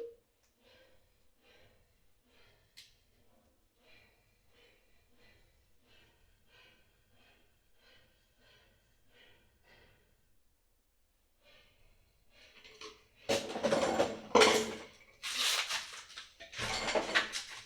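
Background music with percussion: very faint with an even beat at first, then loud from about thirteen seconds in.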